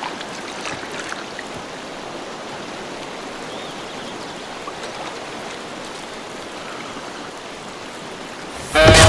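Steady rushing of a shallow river flowing over rocks. Loud music comes in near the end.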